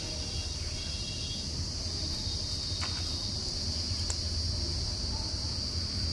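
Steady, high-pitched chirring of a cricket chorus over a low steady rumble, with two faint clicks about three and four seconds in.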